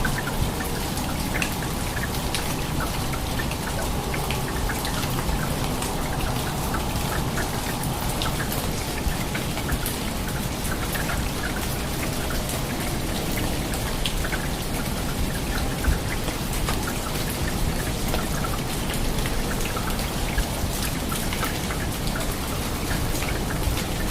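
Heavy rain falling steadily, a dense hiss made of countless drops striking hard surfaces, with no let-up.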